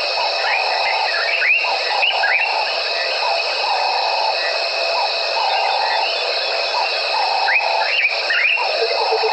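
Evening chorus of calling insects and other night animals: steady high-pitched trilling throughout, a lower call lasting about half a second that repeats roughly once a second, and two bunches of short rising chirps, one about half a second in and one near the end.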